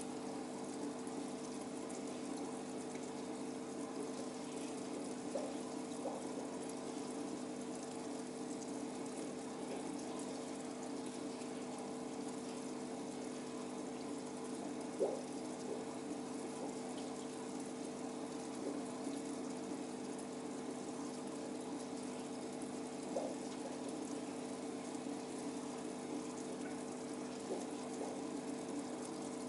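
Aquarium pump humming steadily while water bubbles and trickles in the tank, with a few faint ticks, the clearest about halfway through.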